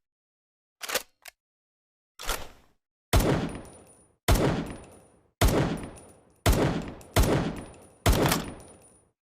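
Makeshift, homemade imitation of M1911 pistol fire: two small clicks and a softer hit, then six loud, sharp shots about a second apart, each trailing off over most of a second.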